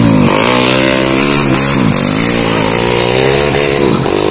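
Motocross dirt bike engine revving hard as it accelerates away, the pitch climbing and dropping back sharply about two seconds in and again near the end as it shifts up through the gears.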